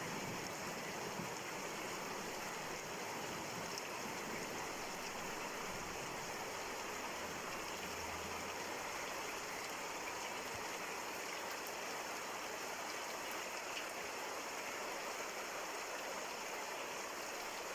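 Steady rain falling, an even hiss of many drops with no pause, and a few faint separate drop ticks now and then.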